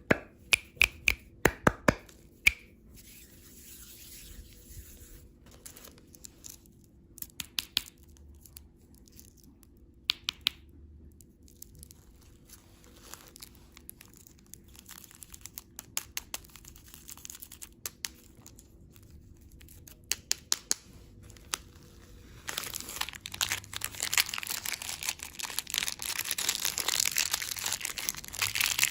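Plastic candy packaging being handled. It starts with a quick run of sharp clicks and taps, a few scattered clicks follow, and about three-quarters of the way in comes a steady stretch of crinkling and tearing.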